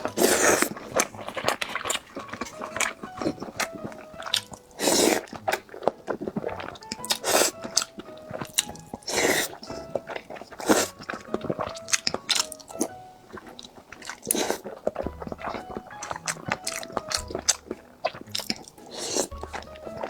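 Close-miked biting and chewing of crunchy food, with sharp crunches at irregular intervals, over light background music.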